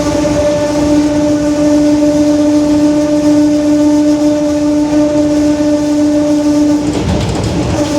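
Rear differential of a Mercedes-Benz OF-1721 BlueTec 5 city bus howling very loudly: a steady high gear whine holding one pitch over the rumble of the bus. The whine cuts out about seven seconds in, leaving only the rumble.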